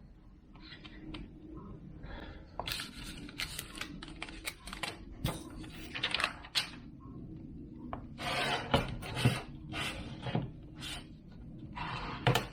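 Rubber tool rubbing and scraping over a glass screen protector on a tablet screen in a series of quick, irregular strokes, pushing out trapped air bubbles.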